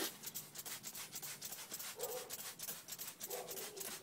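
Hand trigger spray bottle squirting degreaser in a fast run of short, faint sprays.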